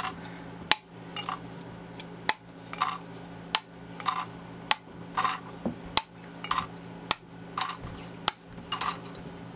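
Brittle machined plastic strips being snapped out of a sheet by hand, one at a time: a sharp snap about every second, each followed by a light clatter as the freed strip drops onto the metal vacuum plate.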